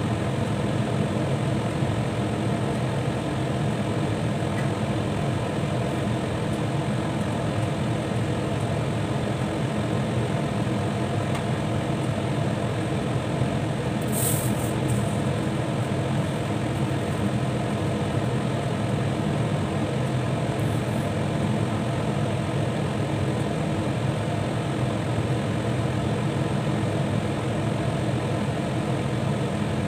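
Steady low rumble and hiss of a glass-lidded pot of curry meat and vegetables cooking at a simmer, with a brief sharp click about halfway through.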